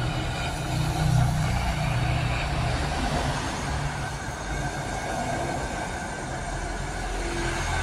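Steady vehicle driving sound: a low engine hum under continuous road noise, with no pauses or sudden events.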